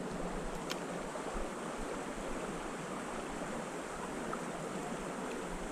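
River water flowing steadily, an even rushing noise with no breaks.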